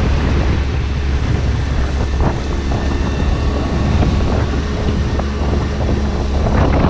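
Strong wind buffeting the microphone on an open sailboat deck, over the wash of choppy seas.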